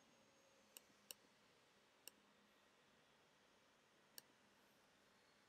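A computer mouse clicking four times, short sharp clicks about a second in, twice close together, then once at about two seconds and once at about four, over near-silent room tone.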